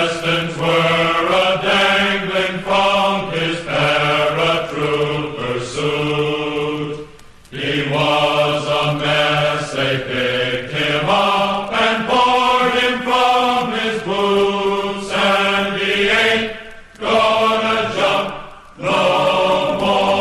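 Choir of men's voices singing held notes, with short breaks between phrases.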